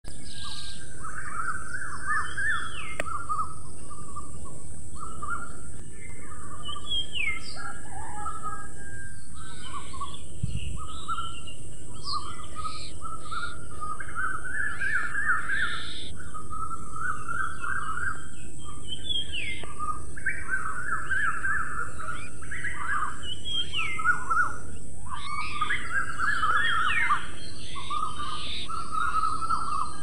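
A chorus of birds chirping and calling, many short overlapping phrases without a break, over a steady high hiss.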